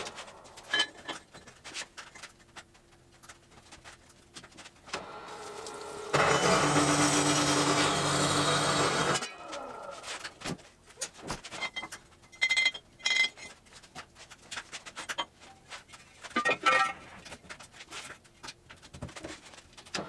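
Metal-cutting cold saw running through steel square tubing for about three seconds, a steady loud cut that stops abruptly. Clanks and knocks follow as steel tubing is slid into the saw's vise and clamped.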